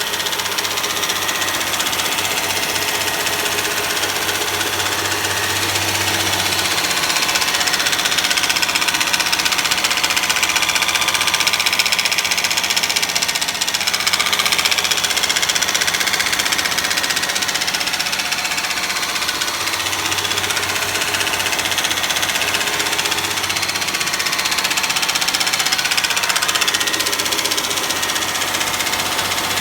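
Honda Legend V6 engine running with a repetitive knock, a knock that shows at about 2000 rpm.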